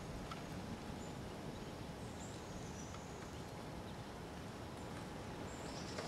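Steady outdoor background hiss with a few faint, short, high bird chirps scattered through it.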